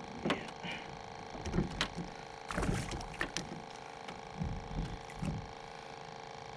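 Irregular knocks, clicks and rubbing of fishing gear and a caught catfish being handled, over a steady background hum.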